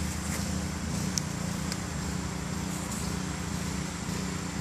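Pressure washer running steadily, a continuous mechanical drone, with a few faint clicks over it.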